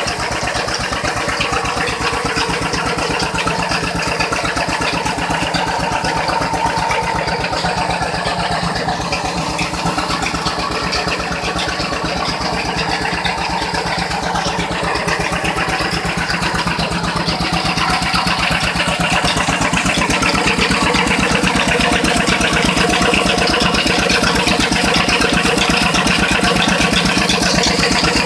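Rice mill machinery running steadily, with a fast, even beat; it grows a little louder about two-thirds of the way through.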